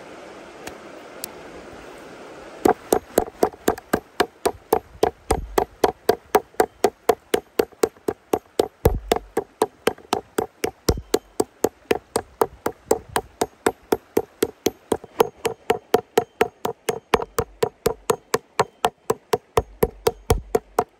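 Metal meat-tenderizing mallet beating a thin slice of raw pork on a wooden cutting board: quick, even blows about three to four a second, starting a little over two seconds in. A stream runs underneath.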